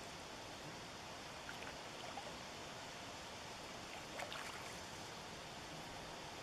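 River water flowing steadily, with a few small splashes, the clearest about four seconds in.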